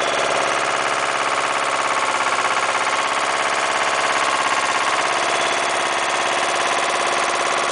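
Engine of a mini dumper with a backhoe attachment running steadily with a rapid, even beat while the backhoe digs soil.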